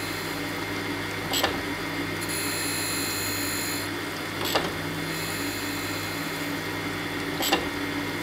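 Jones and Shipman 540 surface grinder running with coolant flowing: a steady hum from the wheel spindle and motor, a knock about every three seconds as the table reverses at the end of its stroke, and a high grinding hiss between the knocks as the wheel passes over the steel vise jaw.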